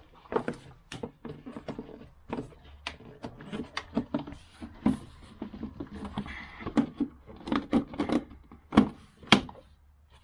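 Irregular clicks and knocks, several a second, of hand tools and parts being handled while working on a car engine.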